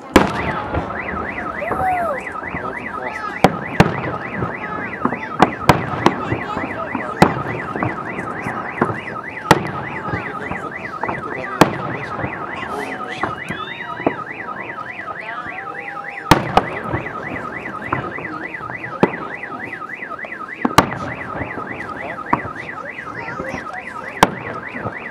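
A car alarm sounds in a fast, repeating warble, while fireworks shells go off in sharp bangs every second or two; the bangs are the loudest moments.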